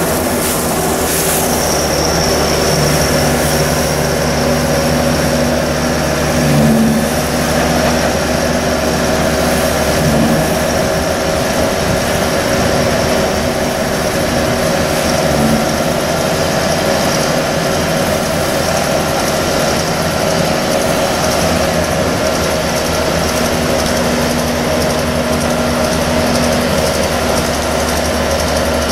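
Tractor-driven forage wagon unloading chopped corn silage: the tractor's diesel engine runs steadily, powering the wagon's unloading conveyor as the silage spills out onto the pile.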